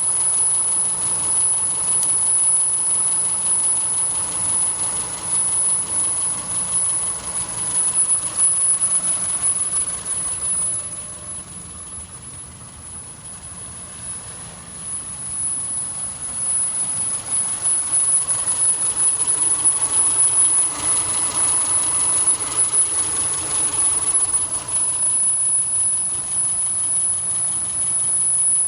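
Subaru engine running, with an unusual noise the owner calls weird. The sound is steady, drops quieter for a few seconds mid-way, then comes back up.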